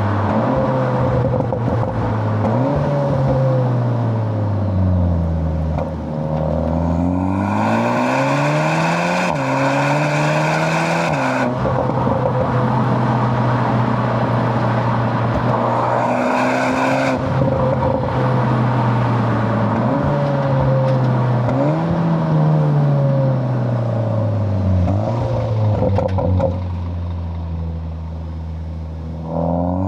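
Cupra Leon ST's turbocharged 2.0-litre four-cylinder engine breathing through a Milltek non-resonated cat-back exhaust, its note repeatedly rising and falling as the car accelerates and changes gear. It settles to a steadier, lower drone near the end.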